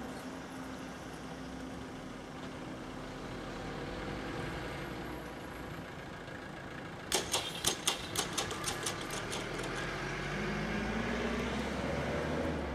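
Road vehicles running and idling at a railway level crossing. A quick run of about a dozen sharp clicks or rattles comes about seven seconds in, and an engine rises slightly in pitch near the end.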